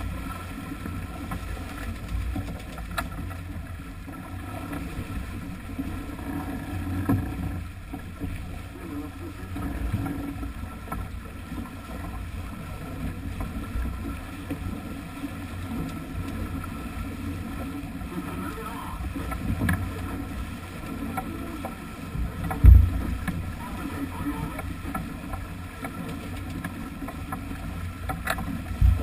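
Sailing yacht under way: a steady rumble of wind buffeting the microphone and water rushing past the bow. A heavy low thump stands out about three-quarters of the way through, with another at the very end.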